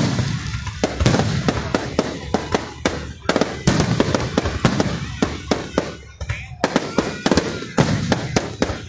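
Aerial firework shells bursting in a rapid, uneven string of sharp bangs, several a second.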